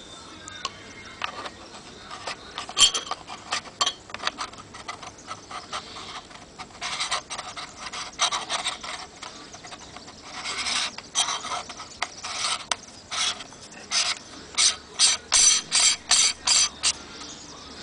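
Black lens adapter tube being fitted and twisted by hand onto the lens barrel of a Nikon Coolpix P500: a run of short scraping, clicking strokes in clumps, ending in a quick even series of about eight.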